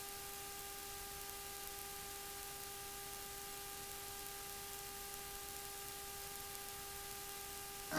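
Room tone: a steady faint hiss with a low, even electrical hum, and no other sound.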